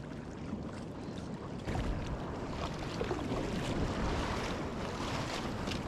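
Wind buffeting the microphone over the sea, with waves and water washing around a fishing kayak at sea. The noise steps louder about two seconds in.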